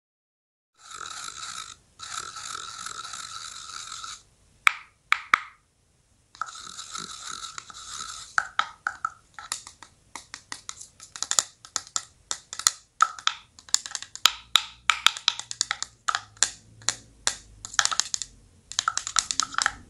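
Sound-design soundtrack of scratchy, hissing noise bursts that start and stop abruptly, then a dense run of sharp clicks and knocks in the second half.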